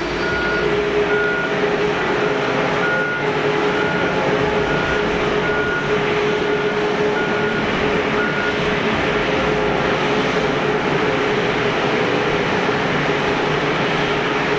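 Steady airport apron noise with a constant engine hum, and a high warning beep repeating about once every half second that stops about eight seconds in.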